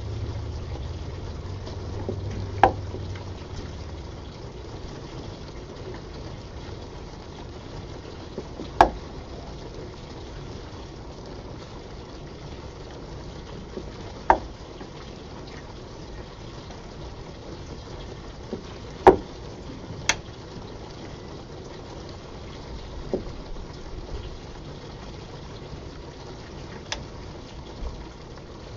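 Steam condensing in a 2-inch acrylic pipe makes a steady bubbling, hissing noise, with 1% air from a bicycle pump keeping water hammer suppressed. Sharp clicks come about every five to six seconds from the pump's cycling, not from hammering, with a few fainter clicks near the end.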